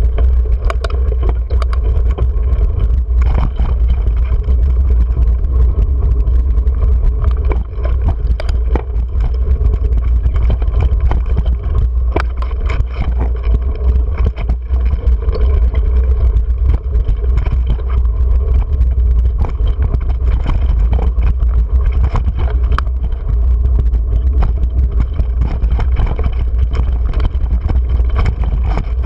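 Mountain bike riding over rocky singletrack, heard through a GoPro: a constant low rumble of wind and vibration on the camera, with frequent sharp knocks and rattles as the bike clatters over rocks.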